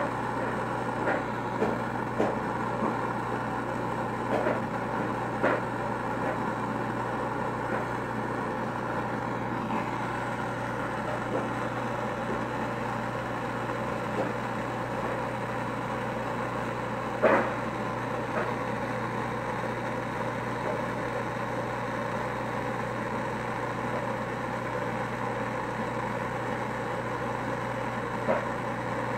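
Handheld gas torch burning steadily with a constant hiss as glass rods are melted in its flame, with a few brief clicks, the loudest about seventeen seconds in.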